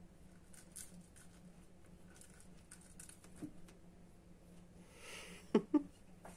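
Faint soft patter and light ticks of a cat batting a toy mouse about on a shaggy rug, over a low steady hum. Two brief sharp sounds come about five and a half seconds in.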